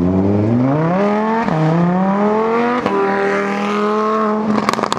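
Lamborghini Huracán Spyder's V10 accelerating hard through the gears. The pitch climbs, falls at two upshifts about one and a half and three seconds in, then holds. Near the end it lets off with a rapid string of exhaust pops and crackles.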